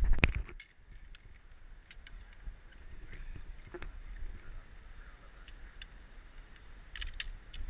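Loud clattering of gear that cuts off within the first half second, then scattered light metallic clicks from zip-line harness gear (carabiners, lanyards and trolley) over a low rumble of the helmet camera being jostled. A short cluster of clicks comes near the end.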